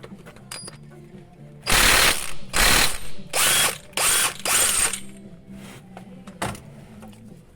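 Ratchet wrench being worked back and forth in five quick bursts of rapid clicking, followed by a single click.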